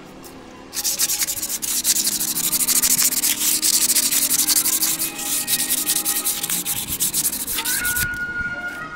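Fast, hard rubbing strokes like scrubbing or sanding a part. They start about a second in and stop near the end.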